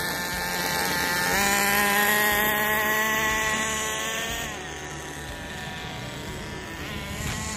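Redcat Tornado S30 RC buggy's nitro engine running hard with a high buzz. It jumps up in pitch a little over a second in and holds there, then drops in pitch and gets quieter about halfway through.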